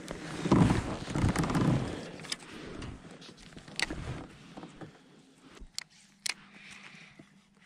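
Rustling handling noise close to the microphone, loudest in the first two seconds, followed by a few sharp clicks as a fishing rod and reels are handled.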